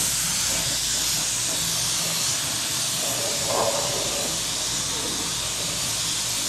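Gravity-feed paint spray gun hissing steadily as it sprays black epoxy primer.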